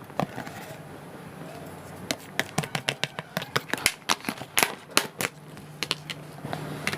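Eating utensils clicking and tapping against a bowl in a quick, irregular run of sharp clicks from about two seconds in to past five seconds. A faint steady low hum comes in near the end.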